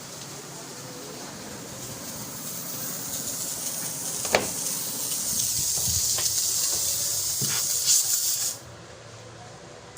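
Pressurised gas hissing out of a refrigeration line, growing louder over several seconds with a few sharp clicks, then shut off abruptly.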